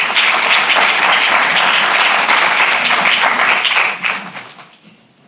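Audience applauding, steady and loud, then dying away about four seconds in.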